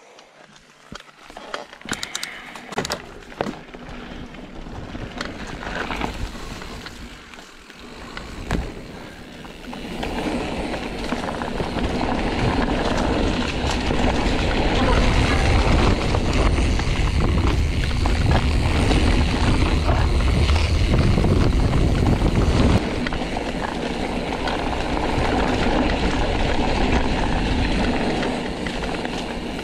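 Mountain bike ridden along a forest dirt singletrack: tyres rolling over the trail and the bike rattling, heard as a steady low rumble. There are scattered clicks in the first few seconds, and it grows much louder from about ten seconds in.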